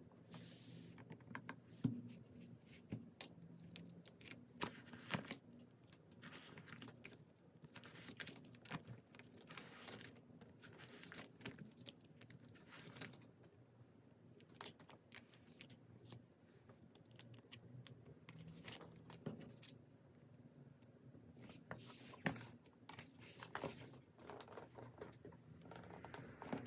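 Quiet handling of packing materials: irregular crinkling, rustling and tearing, with scattered light taps and clicks, over a faint steady low hum.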